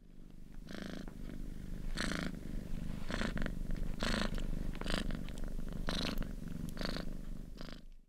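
Domestic cat purring: a steady low rumble with breathy swells about once a second.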